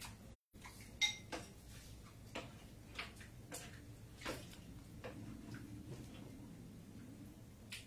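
Faint, scattered light clicks and taps at irregular intervals, with a brief cut-out of all sound just under half a second in.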